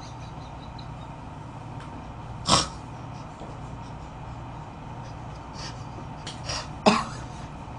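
A man's stifled laughter, held in behind a hand: short sharp bursts of breath snorted out, two loud ones about two and a half seconds in and near the end, with a few softer ones between them, over a low steady room hum.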